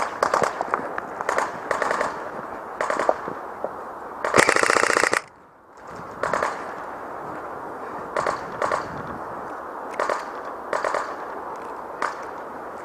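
Airsoft guns firing: short bursts of sharp rapid clicks every second or so, with one longer, louder full-auto burst about four seconds in.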